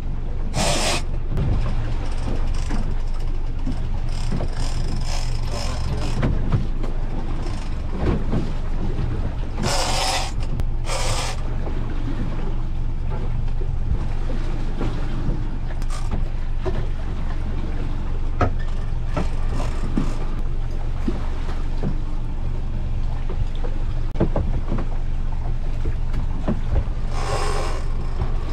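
Suzuki 140 outboard motor running steadily as a low hum, under a constant noise of wind and water. A few short noisy bursts come about a second in, twice around ten seconds in, and again near the end.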